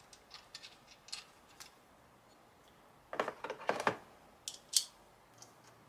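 Small clicks of hardware being handled, then a burst of plastic clatter about three seconds in as a plastic screwdriver case is opened and a screwdriver taken out, with one sharp click a little later.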